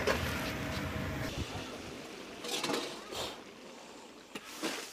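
A steady rushing hum that cuts off about a second in, then a metal ladle scraping and knocking in a large wok as a stir-fry is tossed over the fire, in short separate strokes.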